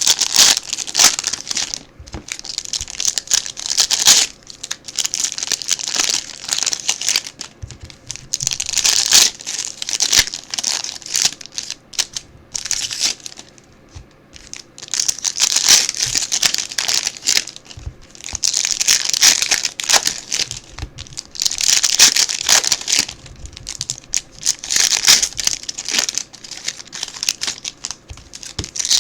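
Plastic wrapping on trading card boxes and packs being torn open and crumpled by hand. It comes as a run of crinkling stretches broken by short pauses, with small clicks of handling between them.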